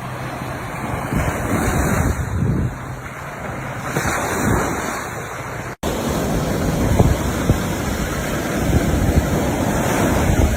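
Sea waves washing onto the shore, swelling and easing, with wind rumbling on the microphone. The sound drops out for an instant about halfway through and is a little louder after it.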